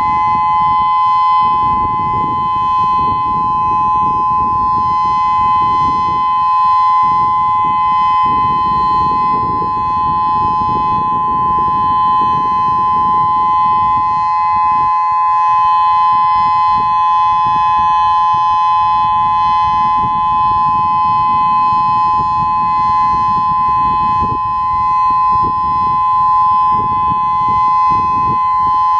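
Federal Signal Modulator 4016 electronic outdoor warning siren sounding its steady Alert signal for a weekly test, a loud, unwavering dual tone with two pitches close together. A fluctuating low rumble runs underneath.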